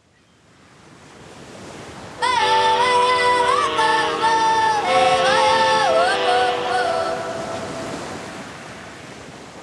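Intro soundtrack music: a rising, surf-like noise swell, then about two seconds in a gliding, vocal-like melody that slowly fades away.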